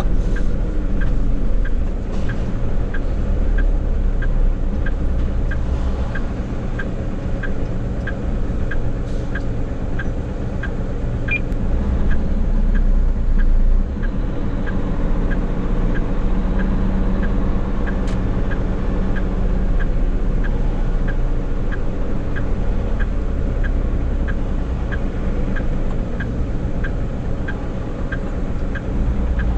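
Hino heavy truck's diesel engine running with a steady low rumble, heard from inside the cab, while the turn-signal indicator ticks evenly, a little under twice a second.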